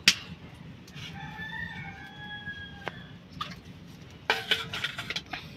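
A rooster crowing once in the background, one drawn-out call of about two seconds. A sharp knock comes right at the start, and a short clatter near the end.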